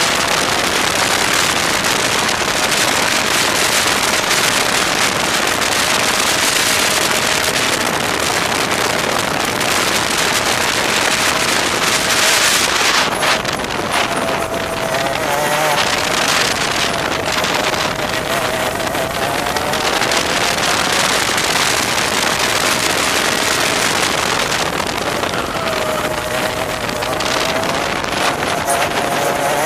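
Onboard sound of a TaG kart's 125cc two-stroke engine at racing speed, its pitch rising and falling as it accelerates and backs off through the corners, over heavy wind noise on the microphone.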